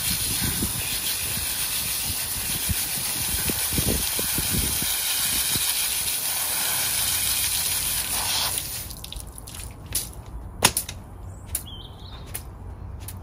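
Garden hose spraying water over a washing brush to rinse grit off it: a steady hiss that cuts off suddenly about two-thirds of the way through. A few sharp clicks and knocks follow.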